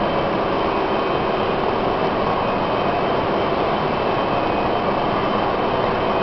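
Machinery of a wood pellet production line running: a steady, loud, unchanging drone of noise with several steady whining tones through it.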